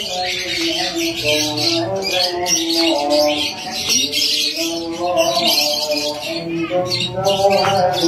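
Many caged songbirds chirping at once, over background music with a slow melody of held notes.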